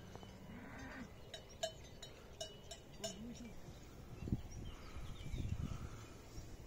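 Livestock with bells: a few light metallic bell clanks, each with a brief ring, come between about one and three seconds in. Faint low animal calls sound alongside them.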